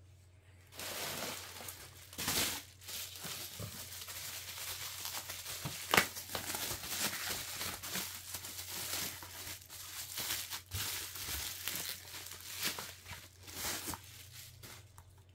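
Packaging crinkling and rustling as it is handled and unwrapped by hand, starting just under a second in and stopping about a second before the end. A sharp snap about six seconds in is the loudest moment.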